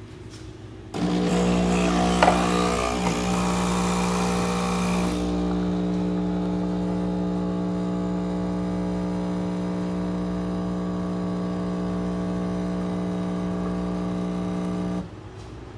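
Nespresso Lattissima Pro espresso machine's pump running as it brews a capsule: a steady buzz that starts about a second in, with a hiss over it for the first few seconds and a click early on, then cuts off abruptly near the end.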